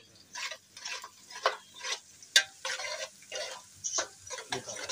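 Metal spoon stirring and scraping through frying onions in an aluminium pot, in uneven strokes about two a second, with one sharp clink of spoon on pot about halfway.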